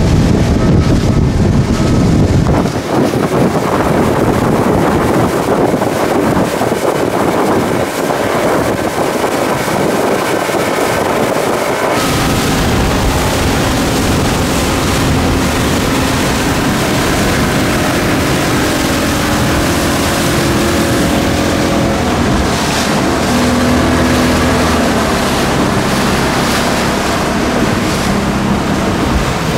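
Speedboat engine running while the boat cruises, with wind buffeting the microphone and water rushing past. The sound changes abruptly about twelve seconds in, after which the engine's steady hum stands out more clearly, shifting slightly in pitch later on.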